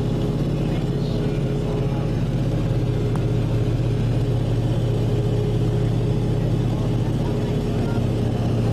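Lockheed L-1049 Super Constellation's Wright R-3350 eighteen-cylinder radial engines and propellers droning steadily in cruise, heard inside the cabin.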